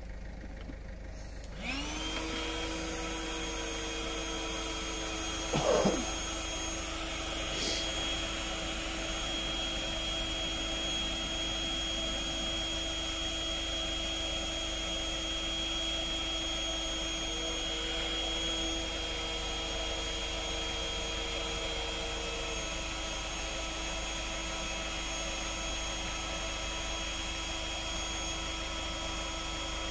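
Electric air pump starts up about two seconds in and runs with a steady hum, inflating the last air tube of an inflatable boat. A brief thump sounds about six seconds in.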